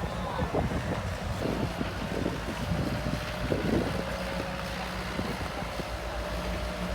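Wind buffeting the microphone over a low steady rumble, with a few faint knocks in the first half.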